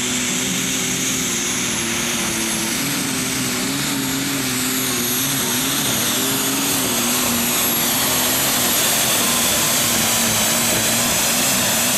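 An International Harvester super stock pulling tractor runs its engine flat out under load while dragging the sled, a loud steady engine noise with a high turbocharger whistle over it. The engine note wavers and steps up slightly about three seconds in.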